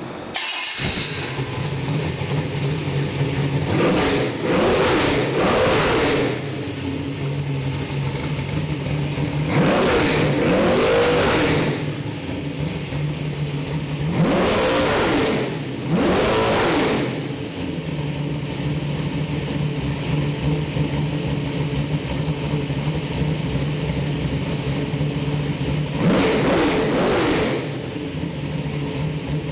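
Chevy 427 small-block V8 with a custom mechanical roller cam and Holley carburettor fires up on an engine run stand about half a second in and settles into a steady idle. It is revved five times in short blips, each a rise and fall in pitch lasting a second or two.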